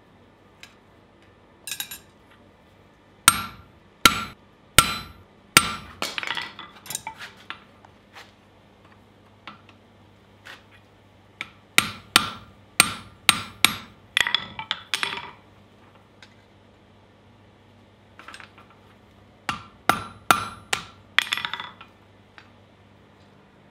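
Forging blows on a top tool driving red-hot angle iron into a grooved bottom tool, sharp ringing metal-on-metal strikes. They come in three runs of several blows each, well under a second apart, with lighter taps at the end of each run.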